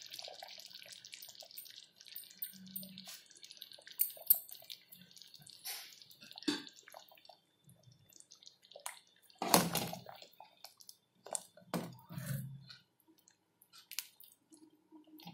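Chicken sambar simmering in an open pressure cooker, with small pops and drips, then a few sharp knocks of a steel ladle against the pot. The loudest knock comes about nine and a half seconds in, with more a couple of seconds later.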